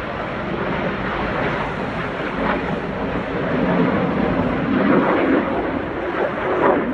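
Jet engine noise of an aerobatic display team's formation of jets flying overhead, a steady rushing sound that swells slightly toward the middle and end.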